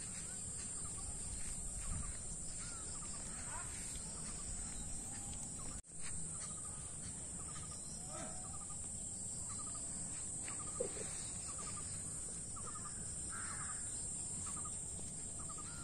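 Outdoor rural ambience of birds calling, with crow-like cawing and many short repeated calls, over a steady high-pitched drone and a low rumble.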